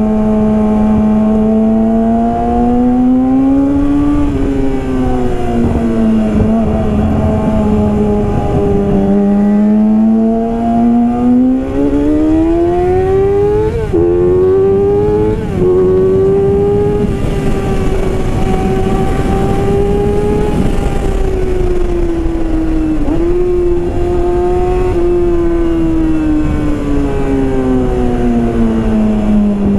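Yamaha R6's inline-four engine through a Yoshimura full exhaust system under riding load. The engine note climbs, eases off and climbs again, with two quick dips midway like gear shifts. It then holds a high, steady pitch for several seconds and falls back toward the end.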